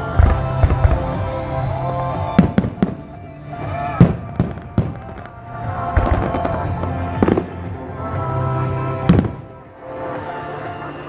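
Fireworks going off at a display: a series of sharp bangs, several in quick clusters, with the loudest about four seconds in and again near nine seconds, over music playing throughout.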